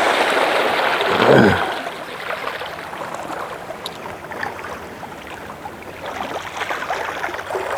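Steady watery hiss, louder for the first couple of seconds and then softer, with a short low vocal sound about a second in.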